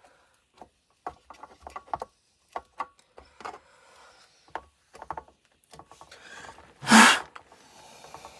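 Small clicks and taps of tools handling a circuit board at a workbench, with one loud sharp snap about seven seconds in.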